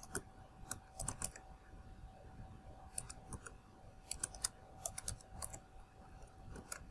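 Computer keyboard being typed on: quick runs of key clicks with short pauses between, fairly faint.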